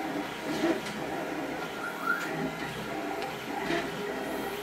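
Paper backing being peeled off adhesive tape and handled: rustling and crackling, with a few sharper crackles and a brief rising squeak about two seconds in.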